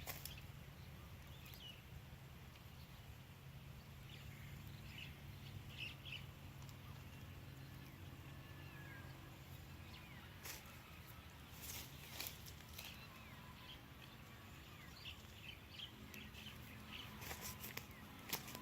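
Faint, scattered bird chirps over a low steady hum, with a few sharp clicks.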